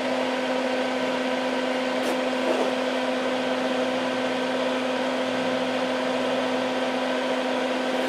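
Hakko smoke-absorber fan running steadily with a hum, drawing off the wood-burning fumes. A faint click about two seconds in.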